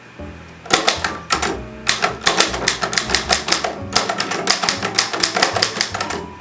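1903 Stoewer Record typewriter being typed on: a quick run of sharp metallic keystrokes, several a second, with brief pauses about a second in and near four seconds. The type action is working smoothly, striking without problems.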